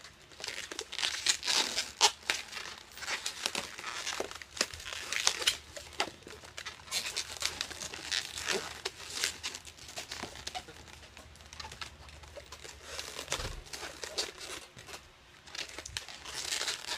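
Inflated 260 latex twisting balloons being handled, rubbed against each other and twisted together, giving a dense run of short rubbing and scraping noises with many sharp clicks.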